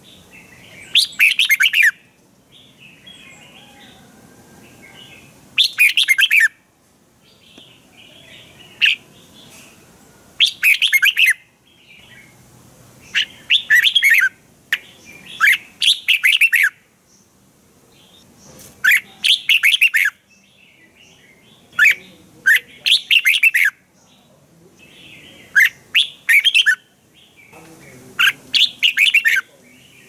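Red-whiskered bulbul singing a spirited song: short, loud, rapid whistled phrases every two to three seconds, with soft chattering notes in between.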